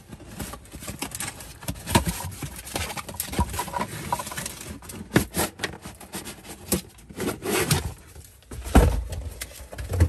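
A cardboard box being opened and a plastic ceramic space heater pulled out of it: cardboard rustling and scraping with many sharp knocks and taps of handling, and a heavier thump near the end as the heater is set down.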